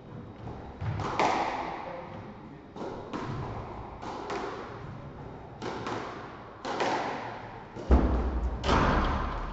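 Squash ball struck with a racket and rebounding off the walls: sharp, echoing cracks, mostly in pairs about a third of a second apart, repeating every second or so. A heavier low thud comes near the end.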